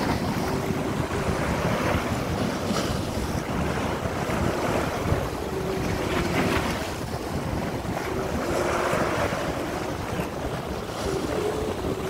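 Small sea waves washing up onto a sandy shore and drawing back, a fresh wash swelling every three seconds or so, with wind rumbling on the microphone.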